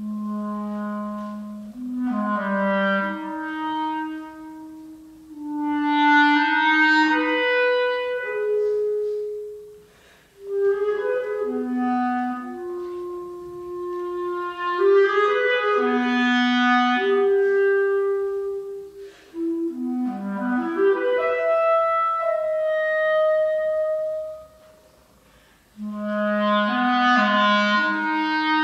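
Unaccompanied clarinet playing a passage of a solo sonata: held notes and quick runs moving between the low register and the middle, broken by a short pause about ten seconds in and a longer one of about two seconds near twenty-four seconds in.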